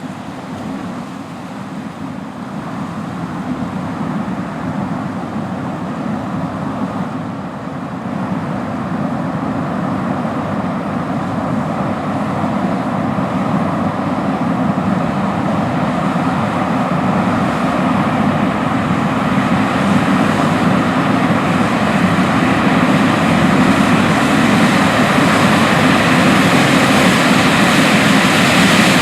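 John Deere S690 combine harvesting corn with its 16-row corn head, its engine and machinery running steadily and growing gradually louder, with more high hiss toward the end.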